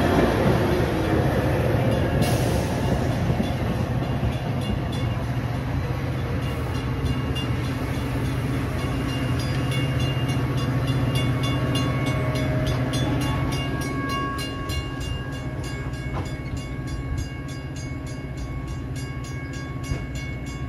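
Metra diesel-hauled commuter train pulling in and coming to a stop: the locomotive and bilevel cars roll past, loud at first and fading as the train slows. A steady low rumble stays on while it stands, with faint high steady tones over it.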